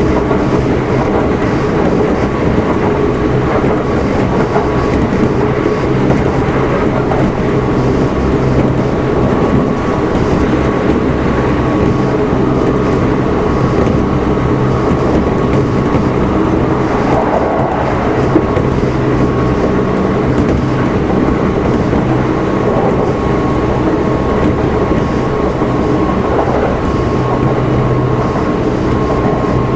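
Running sound inside the motor car of a Kintetsu 1259 series electric train: the wheels rumble on the rails under a steady motor hum as it runs at a steady speed between stations. There is one sharp click about two-thirds of the way through.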